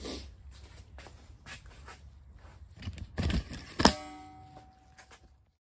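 Workshop handling noises over a low steady hum: soft knocks, a dull thump, then a sharp metallic clink just before four seconds in that rings on for about a second. The sound cuts off just before the end.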